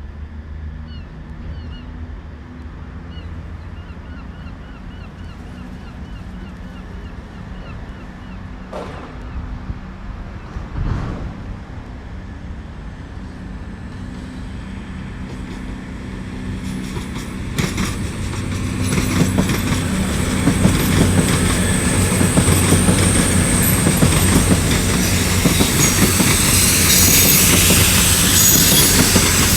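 Double CrossCountry Voyager, a Class 220 and a Class 221 diesel-electric multiple unit coupled, approaching and passing. A low diesel hum builds through the second half, and it grows loud with a high wheel squeal and rail clatter near the end.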